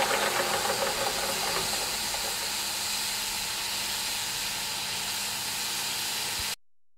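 Wilesco D22 model steam engine: its quick rhythmic chuffing fades out over the first second or two, leaving a steady hiss of steam. The sound cuts off suddenly near the end.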